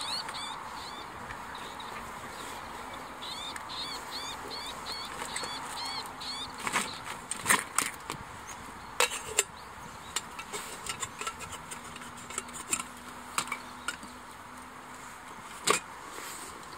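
A small bird calling in quick runs of short, high chirps, about three a second, at first and again a few seconds in, over a steady outdoor hiss. From about halfway on come scattered sharp clicks and cracks, a few of them loud.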